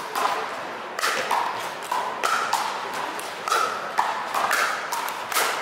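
Pickleball paddles striking the hollow plastic ball in a rally: a rapid series of sharp pops, about two a second, each with a short ringing tone.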